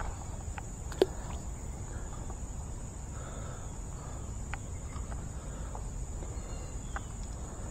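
Steady high-pitched drone of insects, cricket-like, over a faint low outdoor rumble. One sharp tap about a second in and a few faint ticks later.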